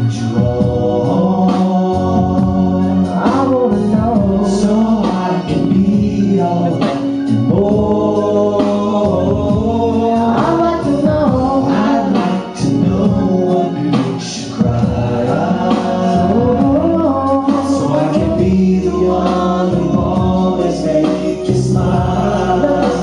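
A man singing karaoke into a microphone over a recorded backing track, with long held and sliding notes.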